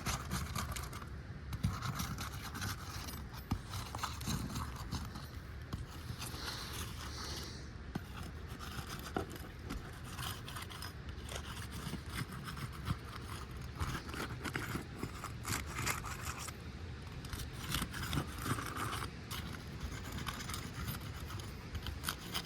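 Asphalt shingle seal strips being broken loose with a pry tool worked under the shingles: repeated scraping with many short sharp clicks and cracks as the tar seals let go.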